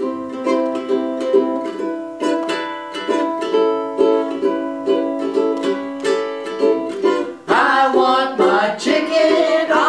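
Ukulele strummed, playing a repeating chord pattern as a song accompaniment. A voice comes in over it about three-quarters of the way through.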